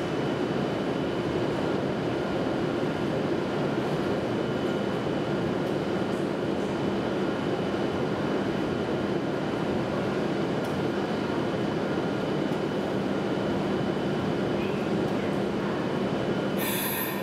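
Steady hum and whir of a standing W7 series Shinkansen train's onboard equipment, an even noise with a few steady tones over it. Near the end a brief high hiss cuts in.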